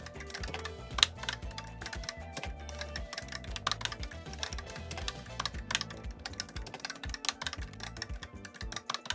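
Keys clicking in quick, uneven runs as code is typed on a Commodore SuperPET keyboard, with background music and a steady bass line underneath.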